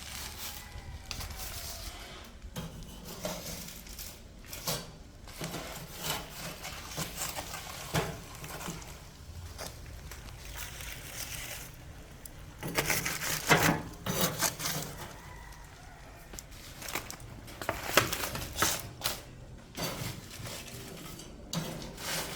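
Metal cookware and utensils clattering and knocking, in scattered bursts with a louder flurry just past halfway, over a steady low rumble of wind on the microphone.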